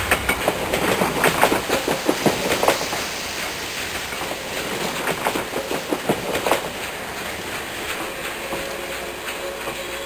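Railway train running on the track, its wheels clattering over rail joints in irregular knocks over a low rumble. The knocks are thickest in the first seven seconds, and a faint steady tone comes in near the end.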